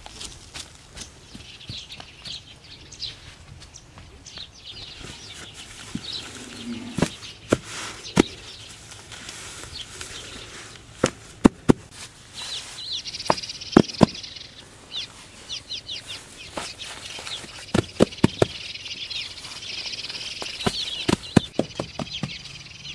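Hands laying and patting down clumps of grass turf on sandy ground: a run of sharp taps and thuds with rustling, and birds chirping in the background.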